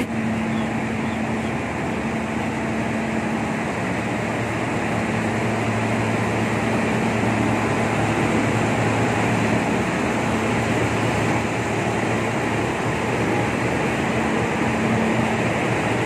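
Diesel-electric locomotive idling: a steady low engine hum under a broad hiss, a little louder in the middle.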